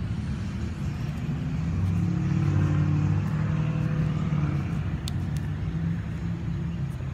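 Road traffic going by on a busy street: a passing vehicle's engine hum swells about two seconds in and fades again by about five seconds.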